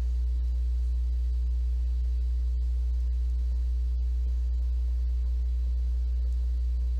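Steady low electrical mains hum with a ladder of fainter overtones, unchanging throughout; no other sound stands out.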